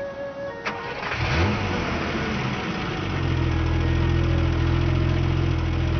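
A sharp click, then a car engine starts about a second in, its pitch rising and falling as it catches, and from about three seconds it runs at a steady idle.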